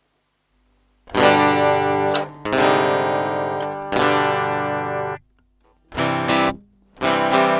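Outro music of strummed guitar chords: after about a second of silence, ringing chords for about four seconds, a short break, then two short chords near the end.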